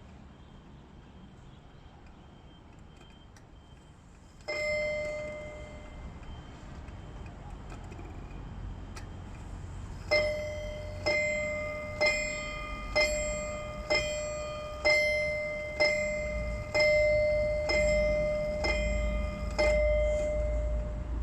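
Seiko Showa-era 30-day mechanical wall clock striking its chime. There is one ringing strike about four seconds in, then a run of eleven strikes about one a second from about halfway, each ringing out before the next.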